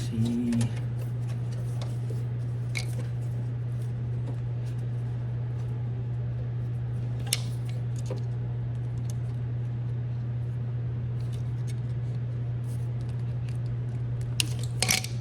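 A steady low hum runs throughout, with a few scattered light clicks and taps of tools or parts being handled.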